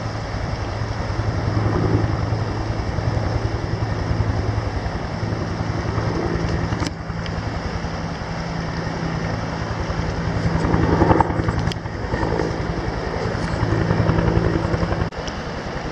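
Rescue helicopter running close by: a steady, rapid rotor beat over a constant engine hum. The low hum drops away suddenly about fifteen seconds in.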